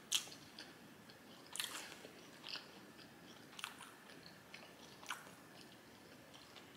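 Close-miked mouth sounds of a person chewing a mouthful of sesame chicken with rice, with short wet smacks and clicks at irregular moments, about one a second.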